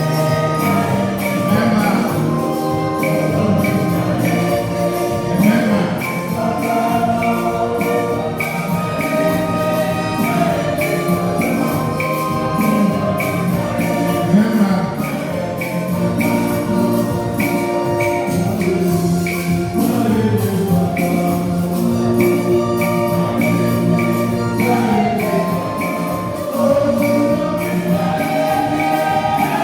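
A church choir singing with a congregation, over rhythmic percussion with a steady beat and a bright jingling shaker or bell sound.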